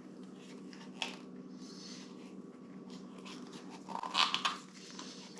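Adhesive tape being pulled and torn to label a motorcycle wiring connector, with crackling handling noises that are loudest about four seconds in, over a steady low hum.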